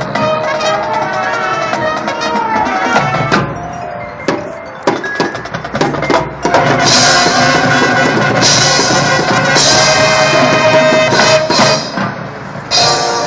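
Marching band playing, sustained wind melody over repeated drum-line strikes. About halfway through it swells into a louder, fuller full-band passage.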